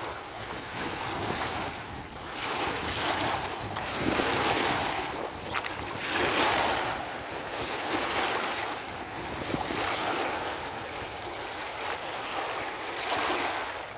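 Small waves washing onto a rocky lakeshore, swelling and ebbing every couple of seconds, with wind buffeting the microphone.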